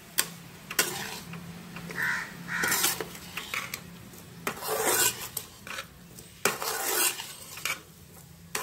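Spatula scraping and knocking against a metal kadai in irregular strokes while dry-fried elephant foot yam cubes are stirred through the masala.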